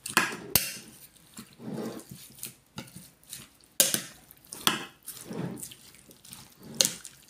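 A metal spoon stirring chunks of boiled potato, cucumber and onion through yogurt in a bowl: wet, irregular stirring strokes with the spoon clinking and scraping against the bowl.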